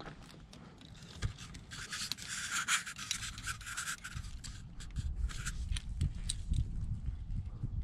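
Rubbing and scraping close to the microphone as a climber moves on rock, with scattered sharp clicks and knocks throughout. A longer stretch of scraping comes about two to four seconds in, and low thumps of movement follow later.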